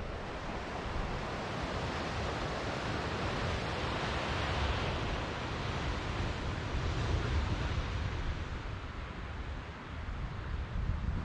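Ocean surf washing onto the beach, a broad hiss that swells and falls back over several seconds, with wind rumbling on the microphone.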